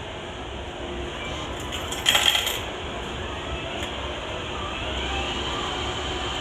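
Coins clinking and dropping, a short jingle about two seconds in, over a steady background hum.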